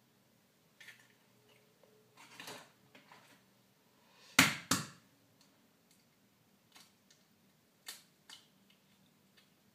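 Small clicks and taps as eggshells and a fresh egg are handled over plastic bowls, with a brief rustle about two seconds in and two sharp knocks close together near the middle.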